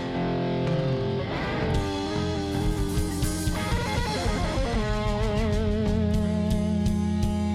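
Background rock music led by electric guitar, with long held notes bending and wavering over a steady beat.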